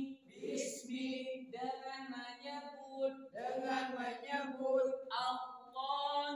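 Men's voices reciting Qur'an verses aloud in a melodic chant, in phrases of a second or two with short breaks between them.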